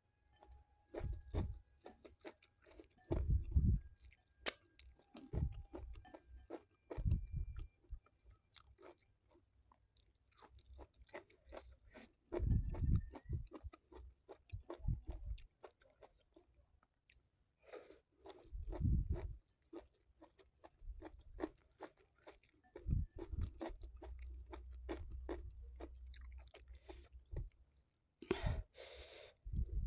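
Close-up chewing of a hand-fed mouthful of nasi tiwul (steamed cassava rice) with stir-fried cabbage and green beans: crisp crunches and many small wet mouth clicks, in several spells with short pauses between. A brief breathy hiss comes near the end.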